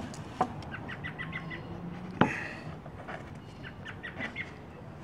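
Hands working a rubber fuel line at a lawnmower's carburetor: a few clicks and a sharp knock about two seconds in, with runs of short high chirps in between.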